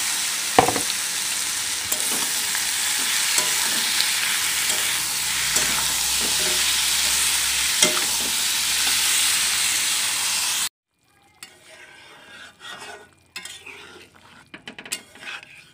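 Chicken pieces just added to fried onions sizzling loudly in hot oil in a wok, stirred with a metal spatula that knocks on the pan a couple of times. The sizzle cuts off suddenly about two-thirds through, leaving quieter scrapes and clinks of the spatula stirring a runny curry.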